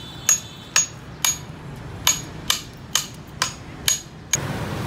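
A hammer striking the back of a knife blade to drive it through a large grouper's head: about nine sharp metallic knocks, roughly two a second, each with a short ring. Near the end a steady motor noise cuts in abruptly.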